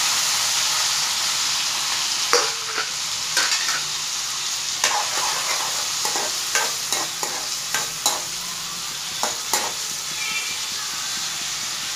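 Lightly boiled vegetables (beans, peas, potato and carrot) sizzling as they fry in oil and ghee in a metal kadai, with the knocks and scrapes of a spoon stirring them. The sizzle is loudest at the start and eases a little.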